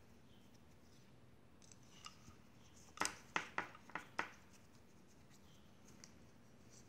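A quick run of five sharp little clicks over about a second, a metal hex driver and screw knocking against the motor mount of a carbon-fibre drone arm while the motor is screwed on; the first click is the loudest, with a few faint handling ticks just before.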